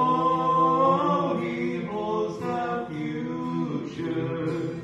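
Two men singing a gospel hymn in harmony with held notes, accompanied by a strummed acoustic guitar.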